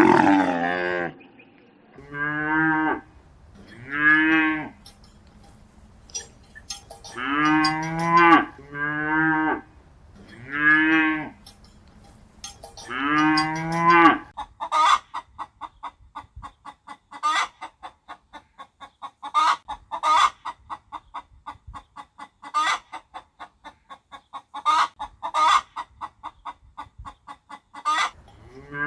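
Farm animal calls: a series of about seven long, wavering calls over the first half, followed by a long run of rapid, even, pulsed calls at about five a second.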